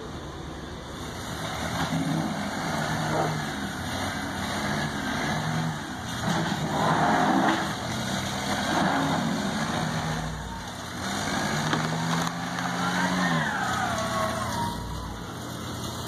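Pickup truck and backhoe engines revving under load, their pitch rising and falling several times, as the backhoe stuck in mud is pulled free on a tow strap.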